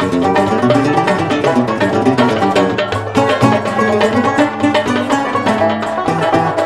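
Algerian chaabi music: an instrumental passage of quickly plucked notes on a mandole and other plucked string instruments, with no singing.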